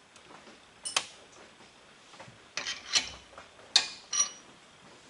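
A few sharp metallic clinks and taps, some ringing briefly, as a stainless-steel elbow fitting on the engine is turned and tightened with a socket tool. The loudest clink comes just before four seconds in.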